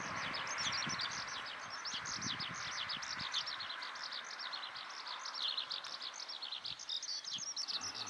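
Eurasian skylark singing: a continuous stream of rapid high chirps and trills. A broad hiss underneath fades away over the first three seconds.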